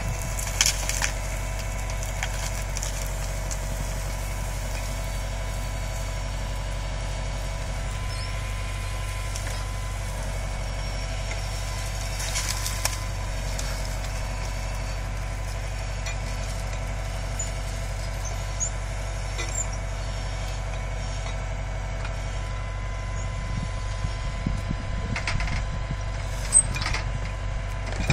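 Tractor engine running steadily under load, driving a hydraulic timber crane and grapple that tears shrubs out by the roots, with a few sharp cracks and clatter of breaking wood, mostly about a second in, midway and near the end.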